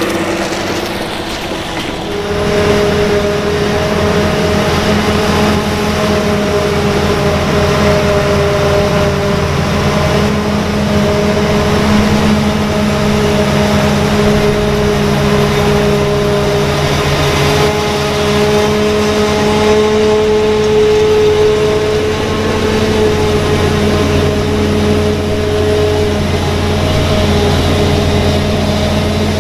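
A John Deere tractor and a Claas Jaguar 870 forage harvester running steadily together while corn silage is chopped and blown into a forage wagon. A loud steady engine hum with a steady whine above it, the mix changing about two seconds in.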